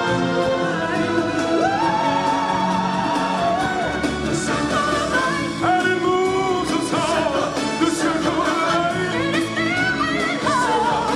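Stage-show music: voices singing over a full orchestral backing.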